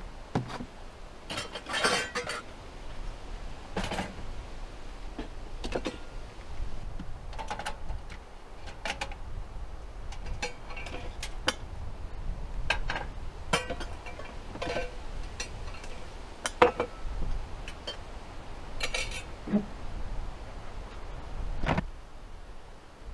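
Camp cooking gear being handled: irregular clinks and knocks of metal pots, pans and utensils, some ringing briefly, over a low rumble of wind on the microphone.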